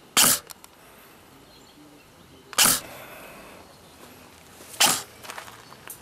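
ASG Scorpion EVO3 airsoft electric gun, stock internals with an upgraded spring, firing three single shots a little over two seconds apart, each a short sharp snap.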